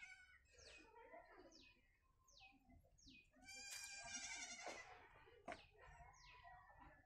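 Faint animal calls: one long wavering call about halfway through, over a string of short, high, falling chirps repeated every half second or so.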